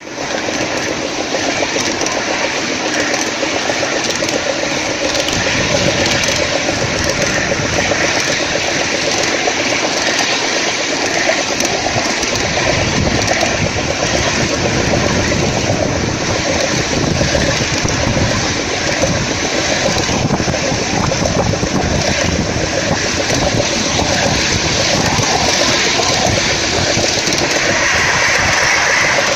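A 5-inch gauge model Class 37 locomotive running along a miniature railway track, with a steady mechanical running noise and a constant rapid clatter from the wheels and track.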